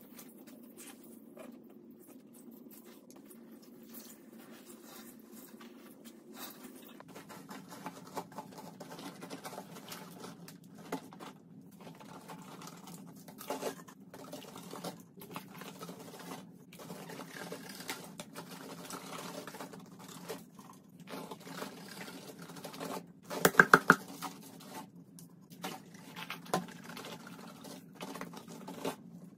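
Liquid cleaner poured onto sponges, then Comet scouring powder shaken from its sifter-top can onto them in a soft, continuous patter. A brief cluster of sharp knocks stands out about three-quarters of the way through.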